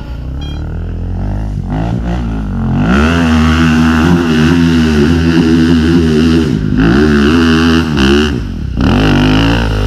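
Dirt bike engine revving hard under load. Its pitch climbs over the first few seconds, then holds high and wavers, with two brief throttle let-offs in the second half.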